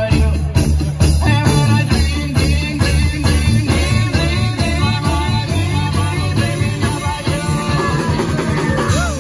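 Live band dance music with accordion and a steady, bouncing bass beat, amplified through PA speakers.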